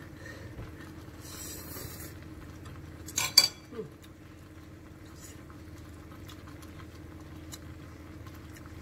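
Metal fork clinking twice in quick succession about three seconds in, over a steady low hum.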